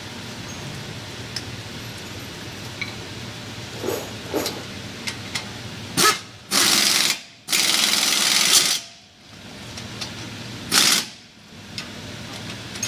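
Impact wrench running on the front hub bearing's mounting bolts behind the steering knuckle: two loud rattling bursts of about a second each back to back, then a shorter burst near the end, after a few light metallic clicks of tools.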